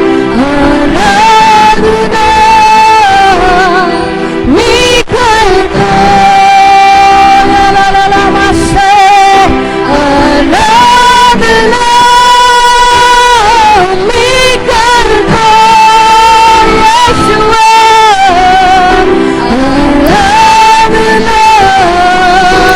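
Hindi Christian worship song: a voice sings long held notes with a light waver over steady instrumental accompaniment, phrase after phrase with short breaths between.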